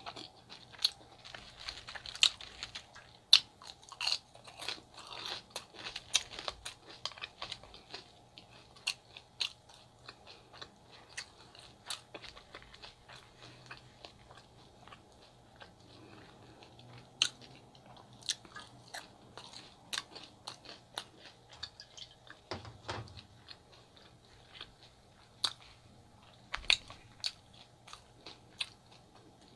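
Close-miked chewing and biting of a chicken gyro and fries, with irregular sharp wet mouth clicks. The clicks are thickest in the first few seconds, thin out near the middle and pick up again later.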